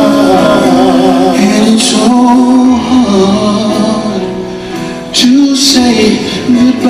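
A male vocal trio sings live in close harmony, holding chords with the voices moving against each other.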